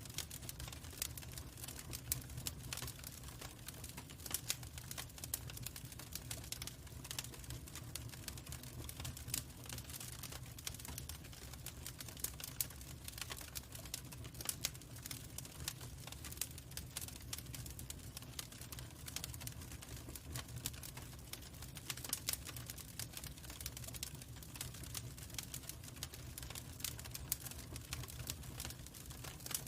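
Log fire crackling in a fireplace: a steady stream of small irregular pops and snaps over a low, even rumble.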